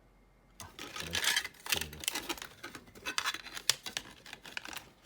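Hard plastic parts handled together: a 3D-printed MOLLE holder and a Kydex radio shell clicking and rattling against each other in a quick, irregular run of clicks that starts about half a second in.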